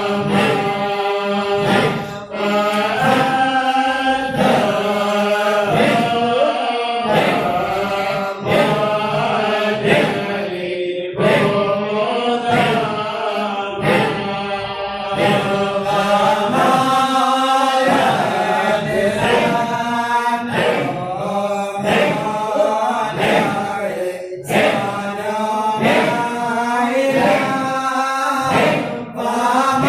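A Shadhili Sufi nasheed chanted in Arabic, sung in long flowing phrases with brief breaths between them, over a steady low tone held beneath.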